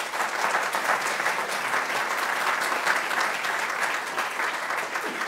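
Audience applauding, beginning to die down near the end.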